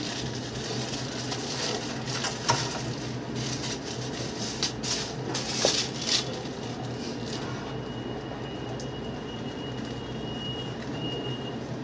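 Steady low background hum, with a few short clicks and rustles as hands place chocolate flowers and leaves on a cake. A faint thin high tone sounds through the later part.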